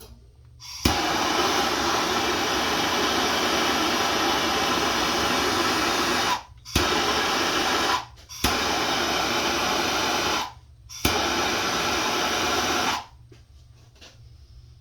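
Handheld gas torch flame hissing steadily while heating copper pipe joints for soldering, in four stretches; each starts with a sharp click as the torch is lit again, and it shuts off near the end.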